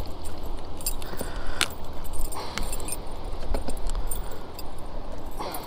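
Metal clicking and jingling of a spinnerbait's hook and blades being worked free from a largemouth bass's mouth, in a few scattered sharp clicks.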